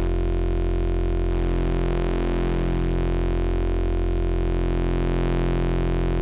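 Steady-pitched waveshaped drone from a Rossum Trident oscillator patch, its tone shifting subtly and slowly as a phase control is turned by hand.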